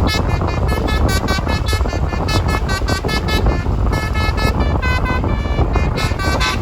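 Basuri telolet horn on a Tunggal Jaya bus playing a fast tune of short, changing notes, with the bus's engine rumbling underneath. The horn drops away briefly a little past halfway, then starts up again.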